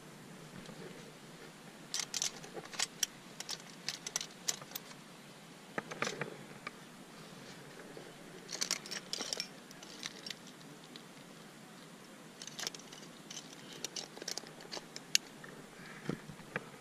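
Climbing rack clinking: carabiners and protection gear jingling against each other in three flurries of short metallic clicks a few seconds apart.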